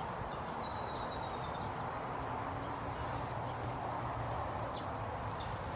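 Steady buzzing of honeybees flying around a hive just filled from a five-frame nuc, with a few faint bird chirps above it.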